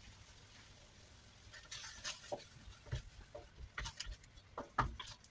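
Wooden spatula stirring a thick potato curry in a wok, with scattered scrapes and soft knocks against the pan starting about two seconds in and coming more often toward the end.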